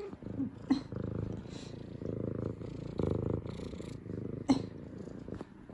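F2 Savannah cat purring close up, a steady pulsing purr that swells and eases about once a second, the happy purr of a cat greeting her owners with head nudges. Two sharp brief sounds stand out, about three quarters of a second in and again about four and a half seconds in.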